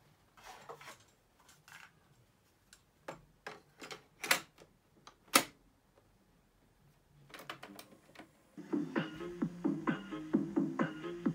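Clicks and clunks of the piano-key controls and cassette mechanism of a National Panasonic RS-451SD radio cassette recorder being operated, with one sharp click about five seconds in. About eight and a half seconds in, music starts playing quietly from its speakers.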